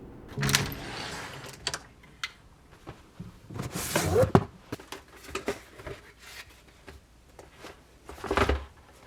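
Rummaging in a drawer: scattered clicks, knocks and rustles of things being handled, with a louder scrape and a short squeak about four seconds in and another scrape near the end.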